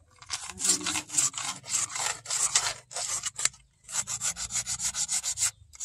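Hand tool scraping in short strokes along the edge of a wooden knife handle, smoothing the handle scales. The strokes are uneven at first, then after a brief pause about three and a half seconds in they come quick and even, about six a second.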